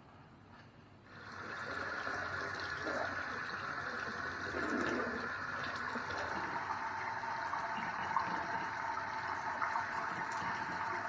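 Kitchen tap turned on about a second in and running steadily into a stainless steel sink, the stream splashing over hands rinsing a fish under it.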